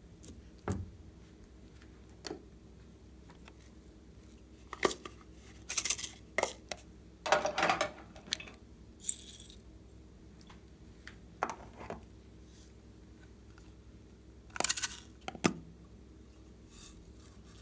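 Small plastic containers of glitter and sequins being handled, opened and tipped out over a tray of slime: scattered sharp clicks and short rattles in several clusters, the loudest about halfway and again near the end.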